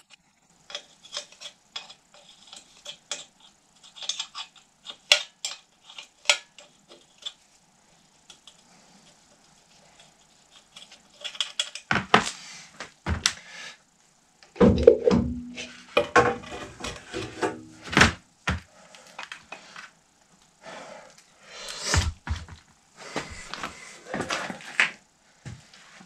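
Hand tools clicking and clinking on the fastenings of a Dnepr MT-11 motorcycle engine. From about twelve seconds in come heavier metal clunks and knocks as the gearbox is worked off the aluminium engine block and set down.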